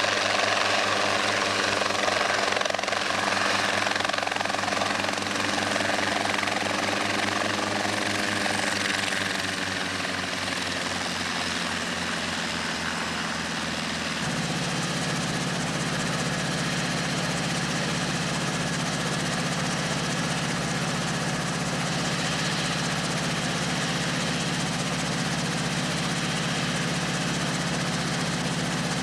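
Light helicopter's engine and rotor running, the pitch sinking a little partway through. About halfway the sound changes abruptly to a steady idle of a helicopter standing on the ground with its rotor turning.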